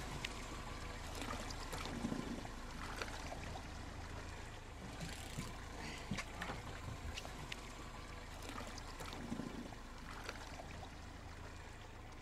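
Faint water trickling and sloshing beside a small fishing boat, over a low steady hum, with scattered small knocks.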